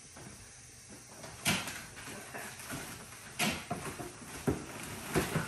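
Plastic wrapping crinkling and cardboard rustling as parts are handled inside a cardboard shipping box, in four sharp rustles.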